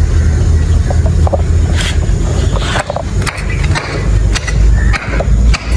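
A hand tool knocking on a terracotta flowerpot, several sharp, irregular strikes, to crack the pot and free the plant's root ball. A steady low rumble runs underneath.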